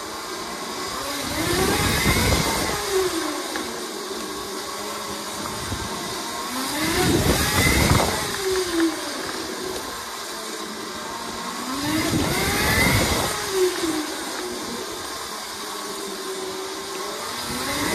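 Electric motor whine of a 72-volt Razor MX500 electric dirt bike running a Sotion FW11 motor. The pitch rises as the bike accelerates and falls as it slows. This happens three times, about every five seconds, and a fourth surge begins near the end.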